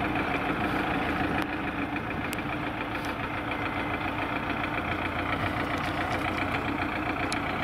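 Wheeled farm tractor's diesel engine running steadily as the tractor drives slowly along a dirt track.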